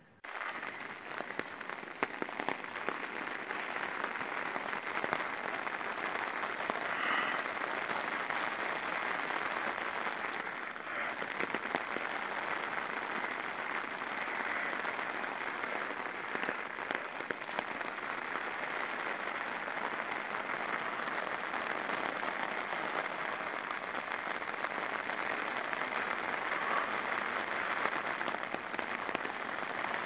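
Steady rain falling on a wet paved street, a dense, even hiss of many small drop hits.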